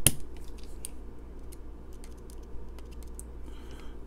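Small screwdriver working the screws of a folding knife's handle: a sharp click or two at the start, then scattered light metallic ticks and taps.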